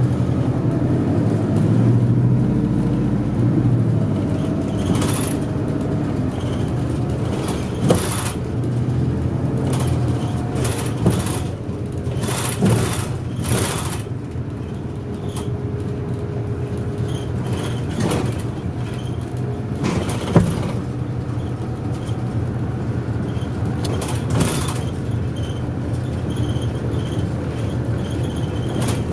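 Inside a moving city bus: a steady low engine drone and road noise, heaviest in the first few seconds, with several sharp rattles and knocks from the body.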